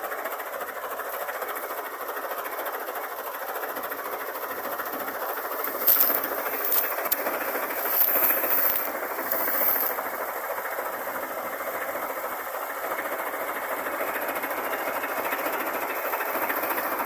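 Heavy farm machinery running steadily, with several short bursts of hiss about six to ten seconds in.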